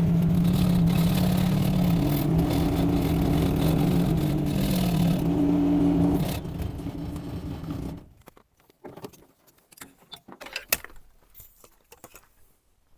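Yanmar diesel engine of a Kymron XH20D mini excavator running steadily, its pitch wavering before it dies away about six to eight seconds in; the machine ran out of diesel just after being backed out of the garage. A few light clicks and rattles follow.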